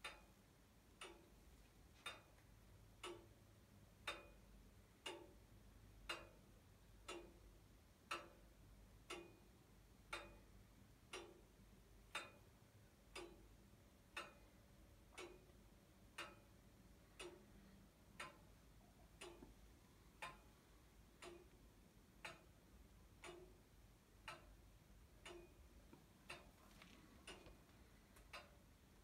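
Comtoise clock ticking steadily, about one tick a second, the beats alternating slightly louder and softer.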